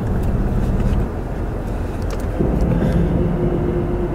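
Loud, low rumble of storm wind from an approaching tornado, buffeting the microphone, with a steady hum under it that drops out about a second in and comes back near the middle.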